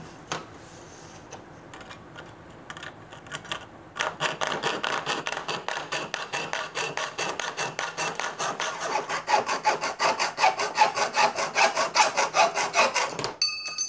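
Hacksaw cutting through a metal shower-door track in a miter box, in fast, even back-and-forth strokes. The sawing starts about four seconds in after a few quieter seconds, and stops suddenly shortly before the end.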